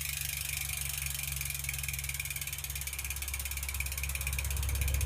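Hadley SDH rear freehub coasting on a spinning bicycle wheel: its 72-point pawl engagement ticks in a rapid, even stream of fine clicks as the wheel slowly winds down.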